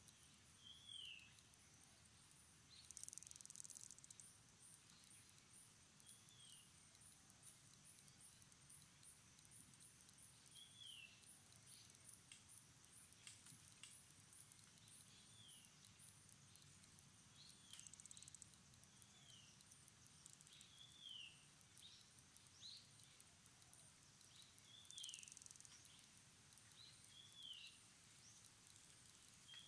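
Faint outdoor ambience: a steady, high, pulsing insect trill that swells into louder buzzes three times, with short falling chirps repeating every second or two.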